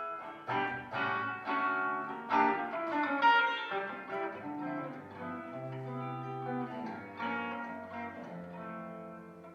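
A guitar playing a slow sequence of chords and single notes, each struck and left to ring.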